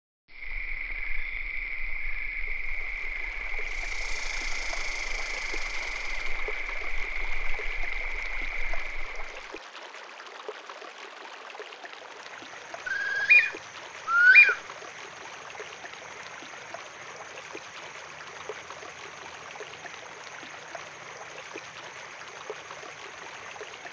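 Running water of a stream or small waterfall. A steady high-pitched tone sounds over it for the first nine seconds or so, and two short rising chirps come about halfway through.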